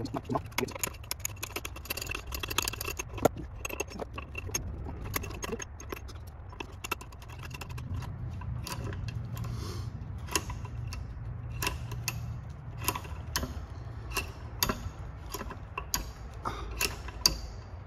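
Irregular small metal clicks and clinks of an Allen key turning steel screws into a retrieval tool's guard, some with a short bright ring.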